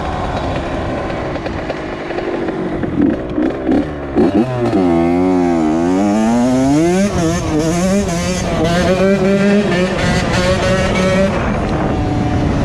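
Honda CR80 dirt bike's 80 cc two-stroke single-cylinder engine running on the move. Its pitch sinks and then climbs back about halfway through, then holds fairly steady.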